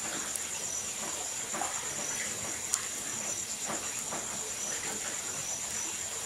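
Crickets trilling in a steady, pulsing high chorus over the soft hiss of a wood fire, which pops sharply a few times, loudest a little under three seconds in.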